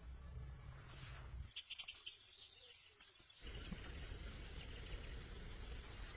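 Birds chirping in short high calls over a steady low outdoor background rumble, which drops away for a couple of seconds near the start and then returns.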